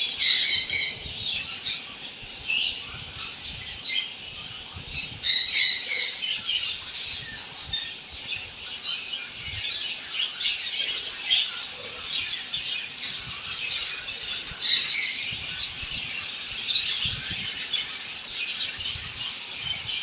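A colony of budgerigars chattering and chirping continuously, with louder bursts of squawking now and then.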